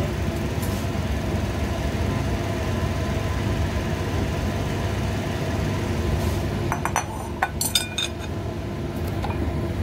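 A spoon clinking against a small ceramic bowl several times, about seven to eight seconds in, over a steady mechanical hum.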